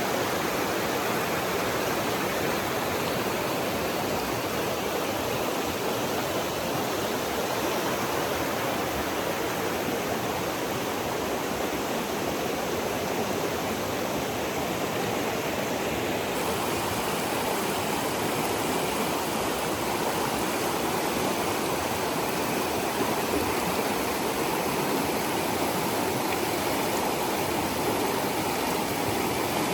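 Rushing water of a stream or river, a steady, unbroken rush.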